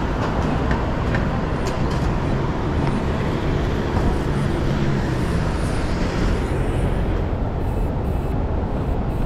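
Steady city street traffic noise: road vehicles running past.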